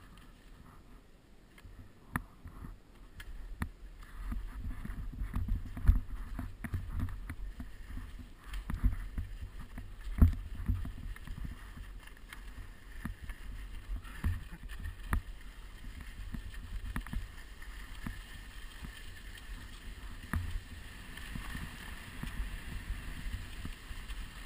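Skis sliding over tracked, crusty snow, heard close up on a camera worn by the skier: a low rumble with scattered knocks and bumps that picks up about four seconds in.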